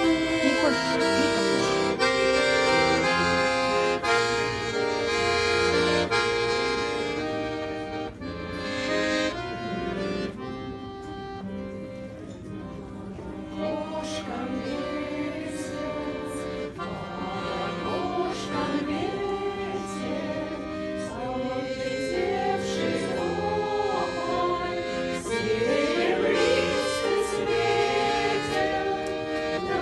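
Accordion playing a Russian folk melody in held chords, with a group of voices singing along in the second half.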